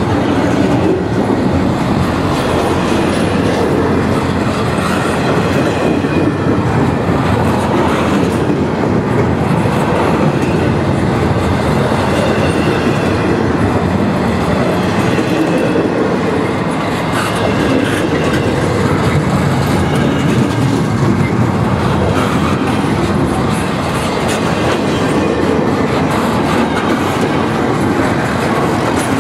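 CN double-stack intermodal train's container well cars rolling past, a loud, steady rumble and clatter of steel wheels on rail.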